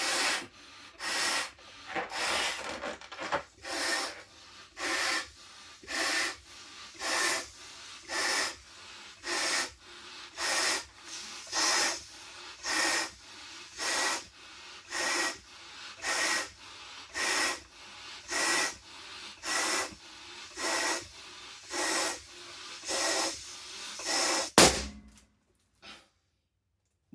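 A latex balloon being blown up by mouth, with about twenty long breaths roughly a second apart, each one stretching the rubber. Near the end it bursts with one sharp, loud bang, and after that it falls quiet.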